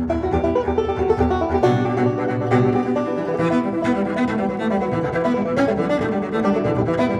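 Instrumental background music led by string instruments, with a low bass line that changes note about a second and a half in.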